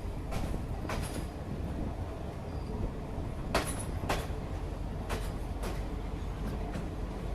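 Sri Lanka Railways Class S8 diesel multiple unit running along the track: a steady low rumble with pairs of sharp clacks about half a second apart as the wheels cross rail joints.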